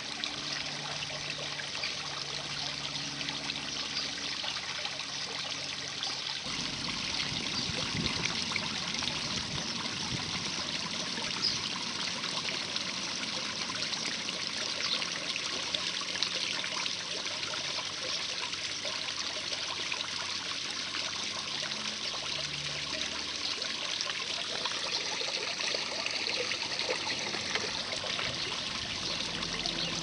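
Water trickling and splashing steadily into a garden pond from a small inflow.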